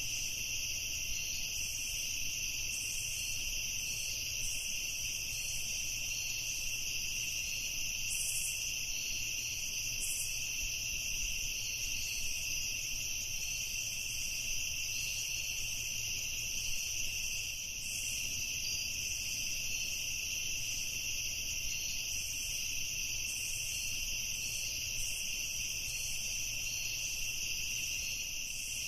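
A continuous chorus of night insects trilling steadily at a high pitch, unchanging throughout.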